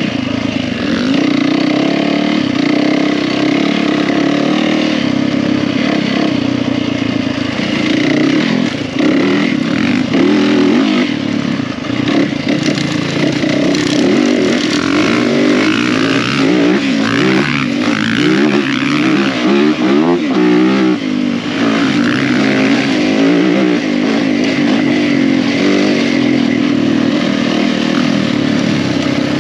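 Yamaha WR450F dirt bike's single-cylinder four-stroke engine running under way, its pitch rising and falling again and again as the throttle is worked through the gears.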